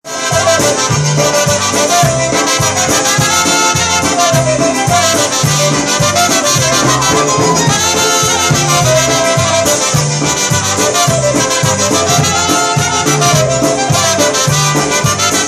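Live polka band playing an instrumental passage: two trumpets and a clarinet carry the melody over a bouncing bass line and drums.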